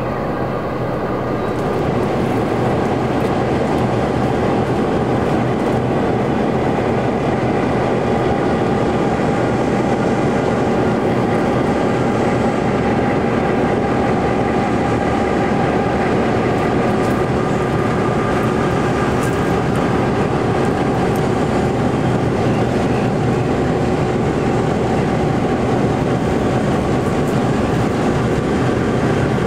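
Victorian Railways T-class diesel-electric locomotives running, a steady engine drone with several held tones.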